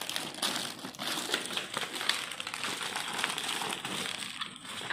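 Plastic toy pieces and their packaging being handled: continuous crinkling with many small clicks and taps of hard plastic.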